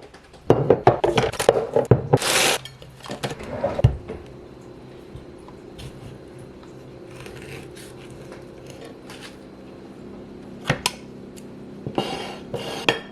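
Kitchen clatter of dishes and utensils for the first few seconds, then a steady low hum with a few sharp clinks near the end.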